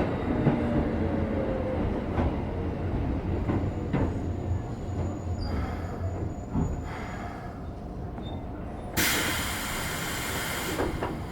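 Keikyu 1500 series field-chopper train heard from inside the car as it slows for a station: low wheel and motor rumble with a faint falling whine, settling quieter as it comes to rest. About nine seconds in, a loud hiss of compressed air starts suddenly and lasts about two seconds.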